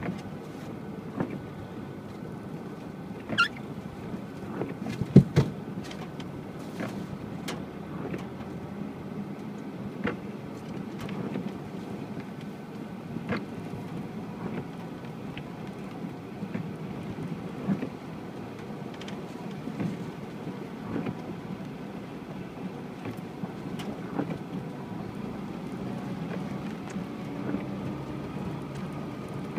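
UAZ Patriot driving off-road on wet ground, its engine running steadily. Scattered knocks and clunks come through, with a loud double thump about five seconds in.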